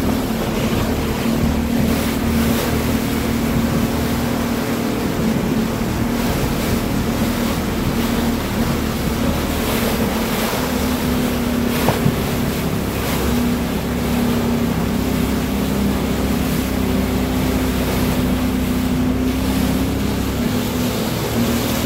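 Pilot boat's engine running steadily as it holds alongside a ship's hull, with water rushing past and wind buffeting the microphone. A single brief knock about twelve seconds in.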